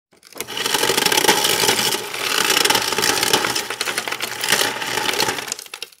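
Refrigerator door dispenser crushing ice: dense crackling and clattering of ice being ground and dropping out, with a steady faint hum beneath, dipping briefly about two seconds in and stopping just before the end.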